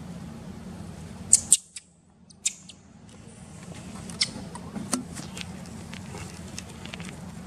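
Long-tailed macaques making short, high squeaks over a steady low background hum. The sound cuts out briefly about a second and a half in.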